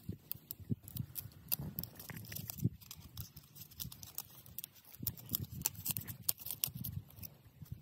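Thin, dry bamboo strips being split and handled by hand: scattered sharp cracks and crackles of the fibres, irregular rather than rhythmic.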